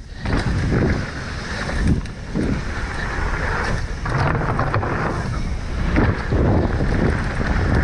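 Wind rushing over the microphone as a Specialized Enduro mountain bike runs fast down a dirt downhill trail, with tyre and drivetrain rattle and irregular low thumps from bumps and landings.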